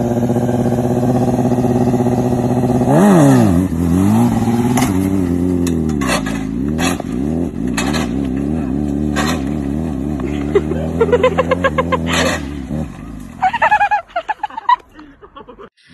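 Sport motorcycle engine held at a steady high rev, then blipped up and down, with the revs wavering for several seconds and sharp clicks scattered through. The engine sound stops about thirteen seconds in.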